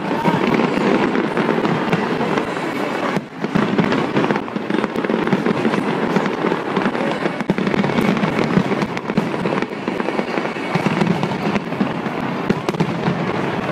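Large aerial fireworks display: a dense, continuous run of bangs from many shells bursting at once, with a brief dip about three seconds in.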